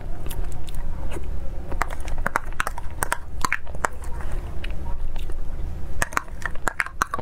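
Close-miked eating sounds: wet chewing and mouth clicks over a soft dessert, with a metal utensil scraping and clicking against a glass cup.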